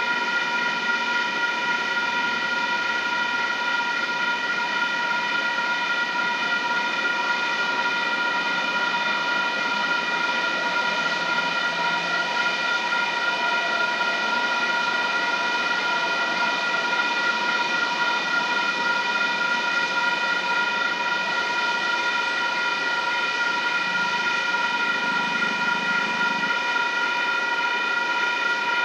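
Grade-crossing warning bells ringing without a break, several tones sounding together, over a steady hiss.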